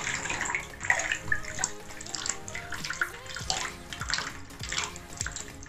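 Water running from a bathtub spout into the tub, then shut off with the handle of a Moen shower valve fitted with a new cartridge; the flow stops partway through, as a check that the spout no longer drips.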